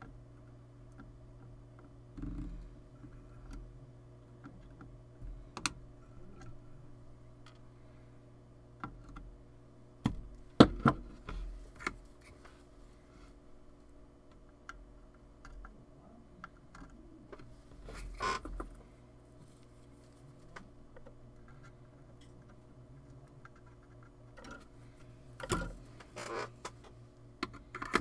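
Scattered light clicks and taps of tweezers and a soldering iron against a circuit board and bench while surface-mount electrolytic capacitors are hand-soldered, with a few louder knocks about ten seconds in, around eighteen seconds in and near the end. A steady low electrical hum runs underneath.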